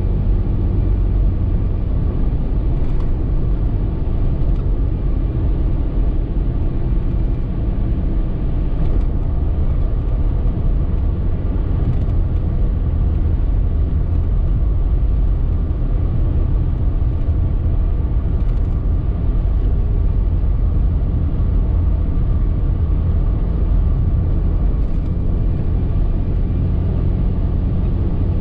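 A car driving at highway speed, heard from inside the cabin: a steady low rumble of road and engine noise that doesn't change.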